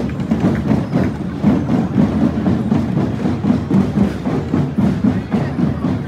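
Drums played by parade drummers: many quick strokes with a woody, clicking percussion edge.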